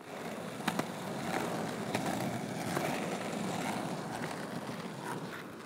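A steady rolling noise with a handful of sharp clicks and knocks scattered through it.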